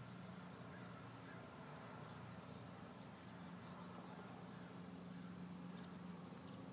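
Faint outdoor ambience: a steady low hum, with a few quick, high, thin bird chirps in the middle.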